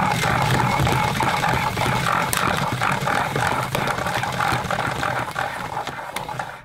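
Numatic Nuvac cylinder vacuum cleaner's 620 W motor running with a steady rush of air, cutting off sharply near the end.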